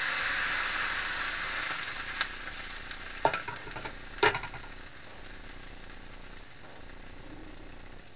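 Bean sprouts sizzling in an oiled frying pan on a gas stove, loudest at first and settling to a quieter steady sizzle. A few sharp knocks sound near the middle.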